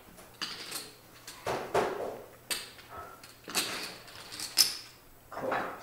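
Poker chips clicking and clacking as players handle them at the table: a run of irregular sharp clacks, a few of them louder.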